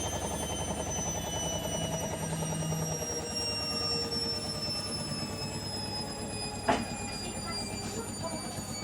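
Candy washing machine on its spin cycle, the drum shaking hard with a fast steady rattle and a motor whine that slowly falls in pitch; one sharp knock comes about two-thirds of the way through. The violent vibration and knocking on spin are the machine's fault.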